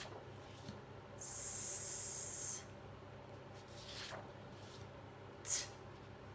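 A woman saying the phonics sound for the letter s as one long hiss, "sssss", for about a second and a half. A paper flashcard rustles as it is flipped, then near the end comes a short, sharp "t" sound.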